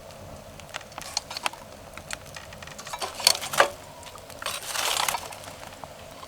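Scattered sharp clicks and clattering knocks of camp gear being handled, with a brief rattling rush about five seconds in.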